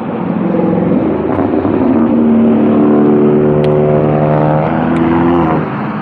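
Road traffic: a motor vehicle driving past, its engine hum growing louder over the first two seconds and dropping away near the end, over a steady rush of traffic noise.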